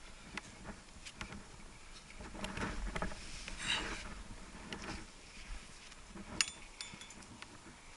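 A rock climber's hands, shoes and rope scuffing and scraping on granite, with scattered small clicks and one sharp, briefly ringing clink of climbing gear about three-quarters of the way through.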